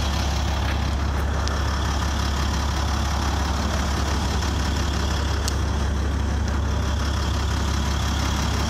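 Heavy tow truck's engine idling steadily, a constant low drone heard from the truck's cab.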